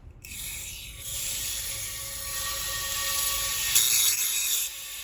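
Water rushing through a partly opened valve into a newly pressurized PVC water line: a steady hiss with faint whistling tones, starting just after the beginning and swelling louder for about a second near the end.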